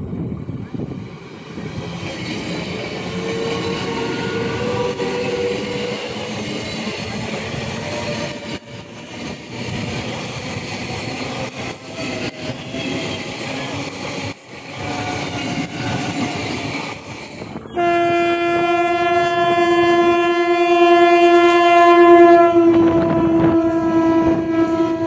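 Electric multiple-unit local train approaching and running past, its wheels clattering on the rails with a faint whine that wavers in pitch. About two-thirds through, a train horn starts one long, loud blast that holds for about seven seconds, dropping slightly in pitch near the end.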